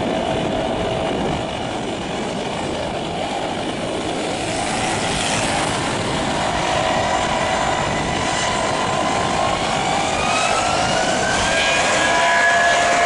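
Turbofan engines of a Super Air Jet Airbus A320 running as the airliner rolls along the runway, a steady jet roar with whining tones. From about two-thirds of the way in, the whine rises in pitch and the sound grows a little louder near the end.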